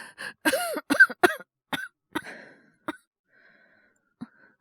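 A male voice actor performing a feverish coughing fit: a rapid run of about five or six harsh coughs starting about half a second in, followed by a couple of ragged breaths.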